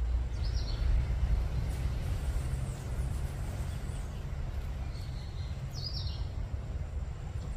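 Outdoor ambience: a steady low rumble with a few short bird chirps, about half a second in and again around five to six seconds in.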